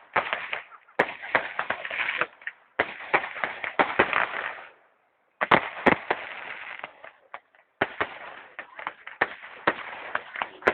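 Fireworks going off in rapid volleys of crackling bangs, with a brief pause about five seconds in before more bursts follow.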